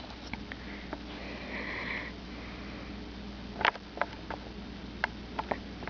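A dog sniffing, with one drawn-out breathy sniff a second or two in, followed by a few sharp light clicks or taps.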